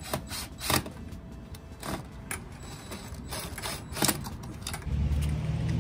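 Scattered metallic clicks and clinks of cable-railing hardware as an eye bolt with its turnbuckle and cable is screwed back into the post by hand. About a second before the end, the steady low hum of a vehicle engine comes in.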